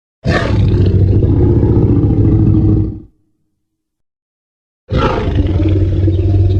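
Tyrannosaurus rex roar sound effect: a deep roar lasting about three seconds, then silence, then a second roar starting near the end.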